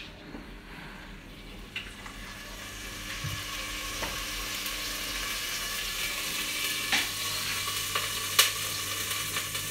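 Oil heating in a pot with unpeeled garlic cloves and a dried ñora pepper, starting to sizzle and growing steadily louder, with a few sharp pops as the garlic begins to fry.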